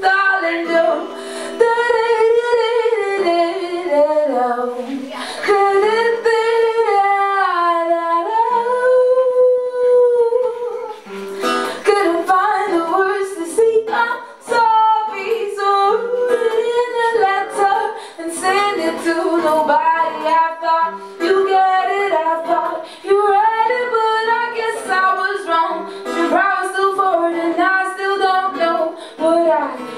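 A woman singing live to her own acoustic guitar accompaniment, her voice carrying the melody over the guitar.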